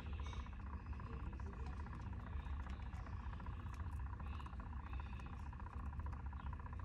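Small electric motor of a tumbler spinner running steadily with a low hum as the resin-coated cup turns.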